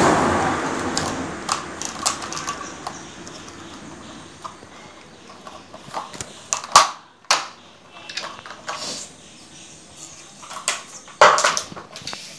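Handling noise as a fishing rod is worked out of a split white plastic wiring tube: a scraping rush at the start, then scattered clicks, knocks and scrapes of rod and plastic. The sharpest knocks come about seven seconds in and again near the end.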